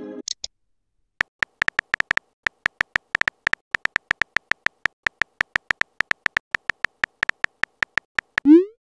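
Typing sound effect of a texting-story chat app: a long run of short key clicks, about five a second, as a message is typed out letter by letter. Near the end comes a rising swoosh as the message is sent.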